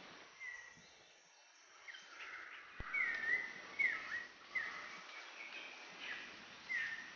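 Short, high animal calls that dip and rise in pitch, several in quick succession around the middle and one more near the end, over a faint background of forest noise.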